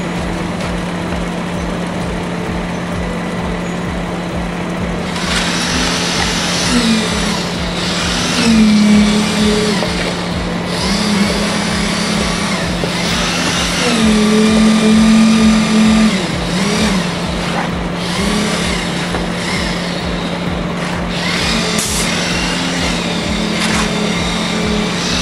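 Concrete mixer truck's diesel engine running with a steady low throb, its pitch rising, falling and holding repeatedly from about five seconds in as it is revved during the pour.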